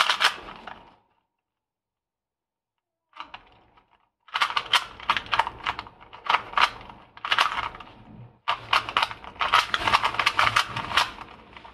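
Plastic 2x2 speed cube being turned fast by hand: a rapid clatter of clicking layer turns. It breaks off for about two seconds near the start, then resumes with a short pause past the middle.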